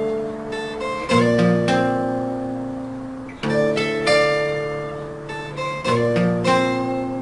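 Background music of strummed acoustic guitar chords, a new chord struck about every two and a half seconds and left to ring.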